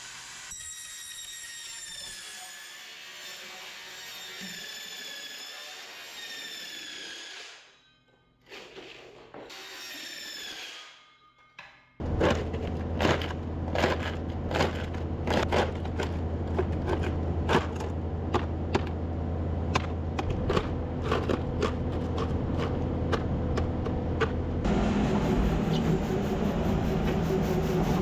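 A circular saw whines as it cuts corrugated plastic drainage pipe. After a short break, a steady low hum with many irregular clicks and knocks comes in. Near the end the sound changes to a Kubota skid steer's engine running.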